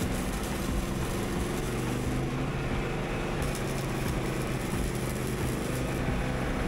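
Wire-feed (MIG-style) welding on a steel tube frame: a steady hiss over a steady low hum.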